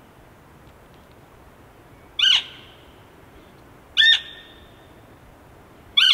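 Elk cow calls: three short, high, falling mews about two seconds apart, each trailing off in an echo.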